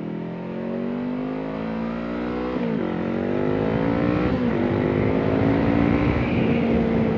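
Honda CBR500R's parallel-twin engine through a Coffman Shorty slip-on exhaust accelerating under load: the pitch climbs, drops twice with upshifts about two and a half and four and a half seconds in, then climbs again. Wind rush grows with speed near the end, heard through a helmet-mounted mic.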